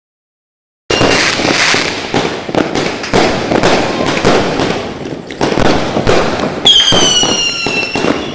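Fireworks going off in rapid succession, a dense run of bangs and crackles that starts suddenly about a second in. Near the end a whistling firework shrieks over the bangs, its pitch falling slightly.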